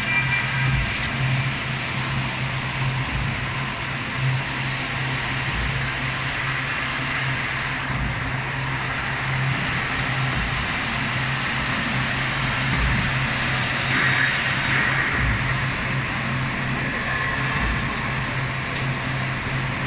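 Rotary veneer peeling lathe line running: a steady electric motor hum under a constant whirring machine noise, swelling briefly about fourteen seconds in.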